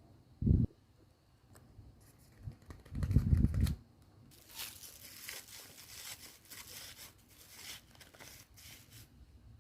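Paper being torn and crinkled as a paper squishy is unwrapped, a long rustling run in the second half. A short thump about half a second in and a longer low bump around three seconds in are the loudest sounds.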